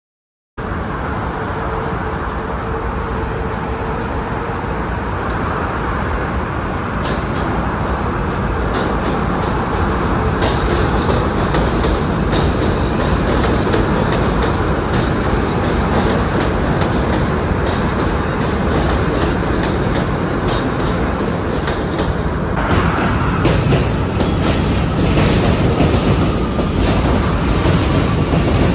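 A New York City Subway train running on elevated steel track: a steady rumble that starts abruptly about half a second in, with rapid clicking of wheels over rail joints from about seven seconds in. A faint whine is heard near the end.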